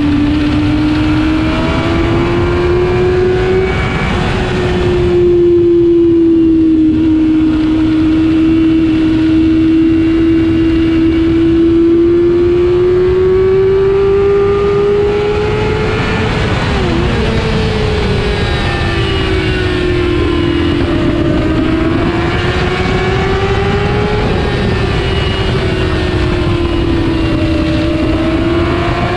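Motorcycle engine running hard at high revs on a race track, its note rising and falling gently several times, with a brief dip about seventeen seconds in. Steady wind rush on the microphone runs under it.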